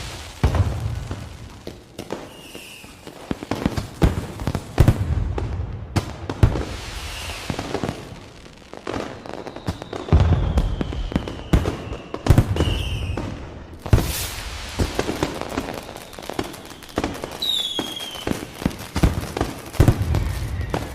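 Fireworks going off: a steady run of sharp bangs and crackles over repeated deep booms, with several whistling rockets, one a long falling whistle.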